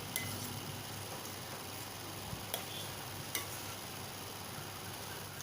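A few faint clicks of a spatula against the kadai as ground spice powder is stirred into the mashed gongura, over a steady low hiss.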